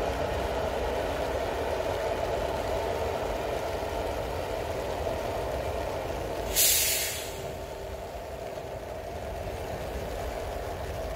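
KTX-Sancheon high-speed electric train running past at a distance, a steady rushing rumble that eases off as it draws away. About six and a half seconds in, a short, loud hiss cuts in and dies away within a second.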